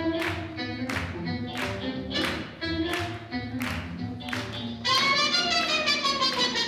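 Recorded swing jazz music playing with a steady beat of about two a second. About five seconds in the band comes in louder and fuller with held, bending notes.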